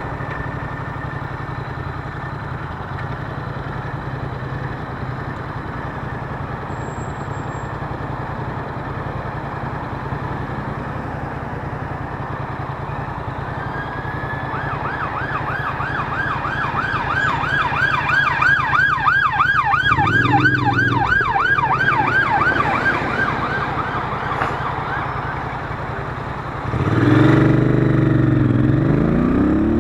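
A Royal Enfield Interceptor 650's parallel-twin engine runs steadily while riding. About halfway in, an emergency-vehicle siren in a fast warbling yelp rises for about ten seconds. Near the end the engine gets louder and rises in pitch as the bike accelerates.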